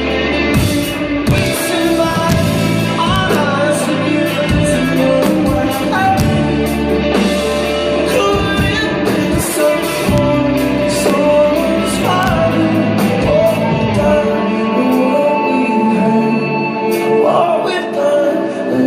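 Rock band playing live with singing. The deep bass drops out about three quarters of the way through.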